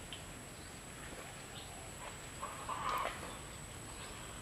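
A short animal call, under a second long, a little past halfway through, ending with a sharp click, over a faint steady outdoor background.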